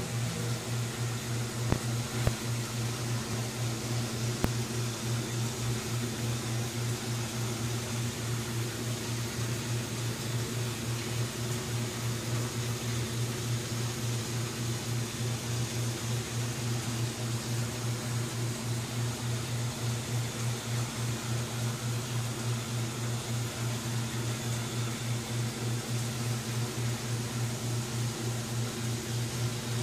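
Running aquarium equipment: a steady low hum that pulses fast and evenly, with a hiss over it, from the air supply feeding a bubble curtain and the tank's other machinery. Three faint knocks in the first few seconds.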